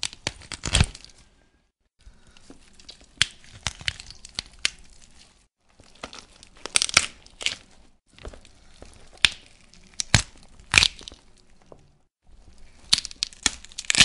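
Bone-breaking sound effect: a series of takes, each a cluster of sharp cracks and crunching, separated by short silences.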